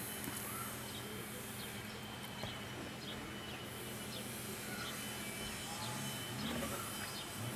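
Faint background ambience: a low steady hum with scattered short bird chirps.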